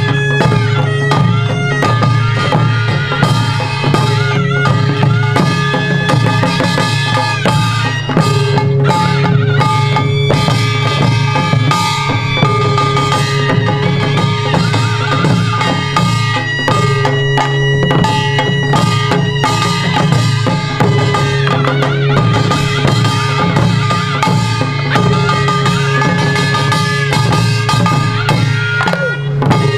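Korean traditional music for the Jindo drum dance: barrel drums (buk) struck with sticks in a steady, continuous rhythm, under held melodic notes that waver in places.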